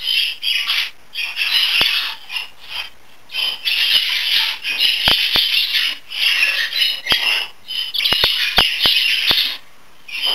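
Budgerigar chattering in loud, uneven bursts of scratchy warble, with several sharp clicks among them.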